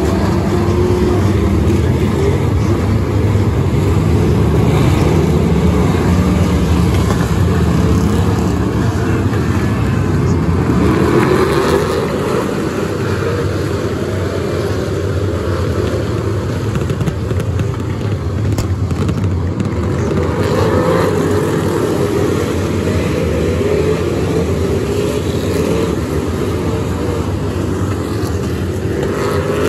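A pack of figure-8 race cars running flat out, their engines rising and falling in pitch as the cars accelerate and lift past, loud and continuous.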